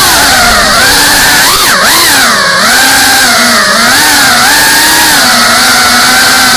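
FPV quadcopter's brushless motors and propellers whining close to the onboard camera's microphone. The pitch swoops up and down with the throttle, then settles to a steadier hum for the last second or two.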